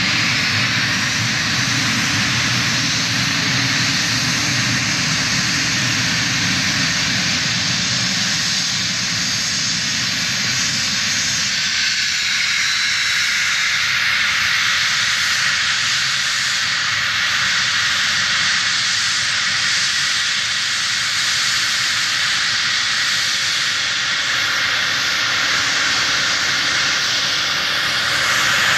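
Cessna Citation Bravo's twin Pratt & Whitney Canada PW530A turbofan jet engines running with a steady, loud rush and high whine. The low rumble drops away about twelve seconds in.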